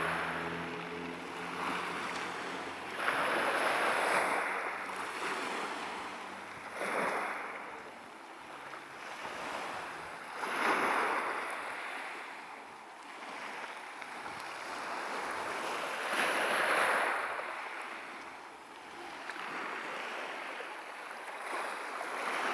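Small waves of a calm sea washing onto a pebble beach, the hiss swelling and falling back every three to six seconds. A faint low hum dies away in the first couple of seconds.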